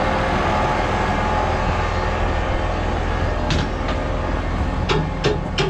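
A crane truck's engine runs steadily with a low rumble. Several short, sharp clicks come over it in the last two seconds.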